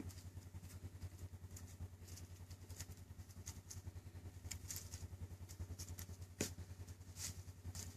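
Kawasaki Mule utility vehicle's engine idling steadily with a low, fast pulse. A few light clicks are scattered over it.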